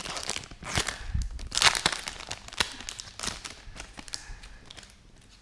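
Foil wrapper of a Pokémon booster pack crinkling and tearing as it is ripped open, in a run of crackly rustles that thins out toward the end.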